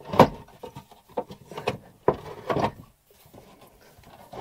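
Hardwood drawer being slid in and out of its cabinet: a sharp wooden knock just after the start, then a run of smaller knocks and rubbing as it moves, going quiet near the end.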